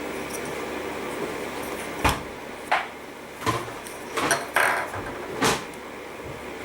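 Plastic toy pieces being handled: about six sharp clicks and knocks from about two seconds in, over a steady background hum.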